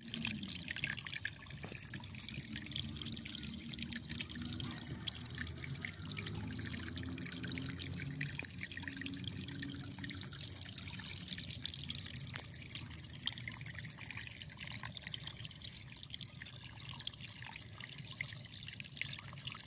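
Shallow water trickling steadily through a gap in the mud bank of a flooded rice paddy.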